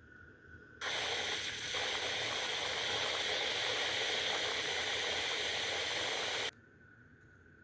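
Dell Inspiron 14 7400 laptop speakers giving out a loud screeching hiss in place of the video's audio: a playback fault. It starts suddenly about a second in and cuts off sharply near the end.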